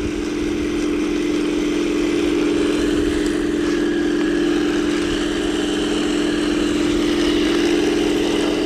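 Henglong Walker Bulldog RC tank's simulated engine sound playing from its onboard speaker as it drives, a steady engine-like drone holding one pitch.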